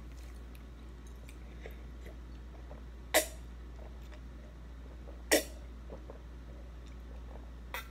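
Two loud gulps as a drink is swallowed from a tipped-up tumbler, about three seconds in and again two seconds later, with a fainter one near the end, over a steady low hum.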